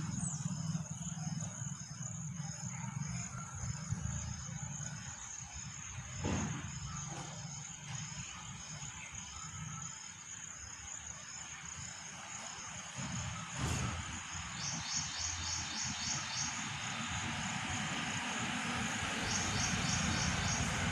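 Outdoor ambience of insects: a steady high chirring with evenly spaced pulsed chirps, and later bursts of rapid trilling, over a low rumble.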